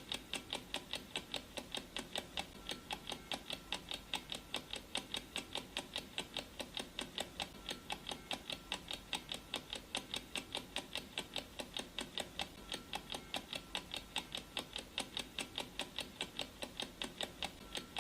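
Countdown timer's clock-ticking sound effect: an even, regular ticking at about four ticks a second.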